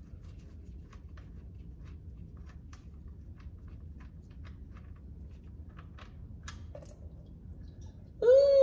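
Scattered light metallic clicks and taps of a hand tool working a transmission drain plug, over a faint low hum. Near the end comes a loud, drawn-out strained groan that falls in pitch.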